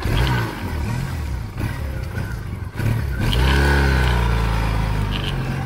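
Triumph Bonneville SE's parallel-twin engine pulling away and accelerating, with a short drop in the engine note about three seconds in before it picks up and rises again.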